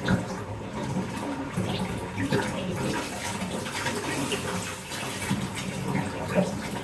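Bath tap running, water pouring steadily into a filling bathtub with small irregular splashes.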